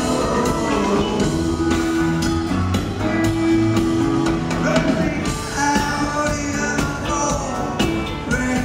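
Live rock band playing electric guitars and drum kit, heard from the audience.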